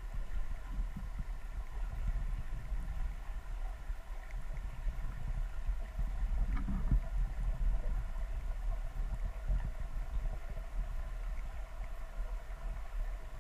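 Underwater ambience: a muffled low rumble of water moving around the camera, with a faint steady hum of several tones over it.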